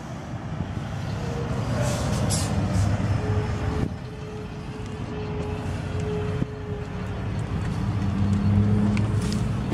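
A motor vehicle running nearby: a low engine rumble that swells about two seconds in and again near the end, with a faint steady whine through the middle.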